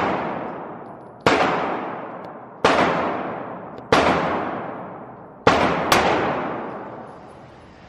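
Five gunshots at a shooting range, spaced about a second and a half apart with the last two close together, each ringing out with a long echoing decay.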